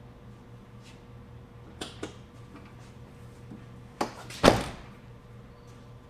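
The driver's door of a 2001 Volkswagen Beetle being pushed shut, closing with one heavy thump about four and a half seconds in, just after a sharper click; a couple of light clicks come about two seconds in.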